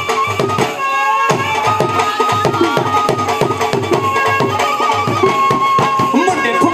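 Instrumental Punjabi bhangra music: a quick, steady drum beat under a sustained melodic line.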